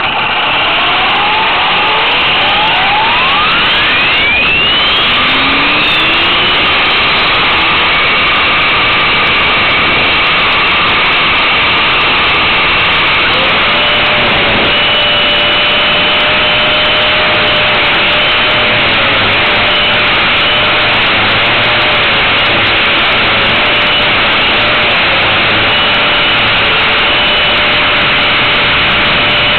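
Align T-Rex 450 Pro electric RC helicopter heard from its onboard camera: the brushless motor and rotor spool up with rising pitch over the first few seconds, then run steadily at flying speed as a loud whine and rush close to the microphone.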